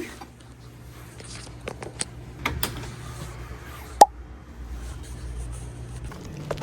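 Steady low hum with a few light handling clicks, and one sharp click with a short ring about four seconds in.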